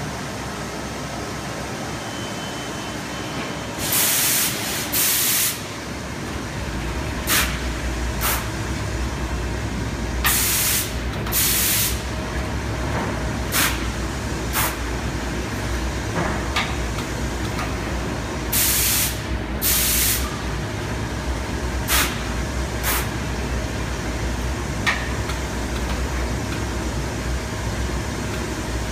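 Olma OBIFOLD blanket folding machine running with a steady hum while it folds. Three pairs of loud compressed-air hisses, each under a second, sound through the cycle, with short sharp pneumatic puffs and clicks between them.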